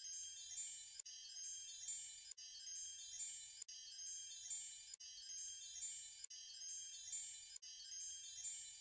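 Background music of high, tinkling chime-like notes in a short repeating pattern.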